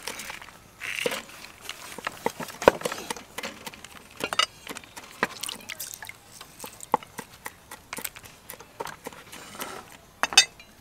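Lime juice dripping and trickling into a small bowl as halved limes are pressed in a plastic hand squeezer, with scattered clicks of the squeezer and the limes being handled. A sharp knock about two and a half seconds in.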